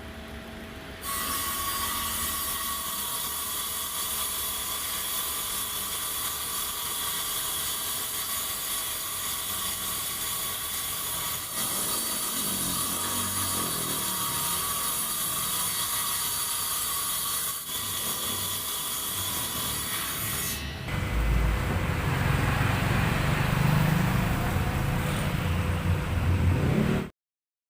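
Table saw running with a steady high whine, starting about a second in. For the last several seconds it turns louder and rougher, then stops abruptly near the end.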